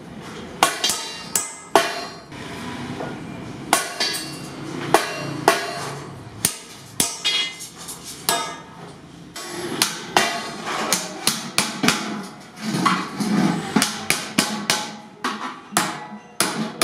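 Hand hammer striking a metal strap on a small anvil as it is shaped into a ring, a run of sharp metallic blows at irregular intervals. Near the end, hammer blows on a sheet-metal milk can.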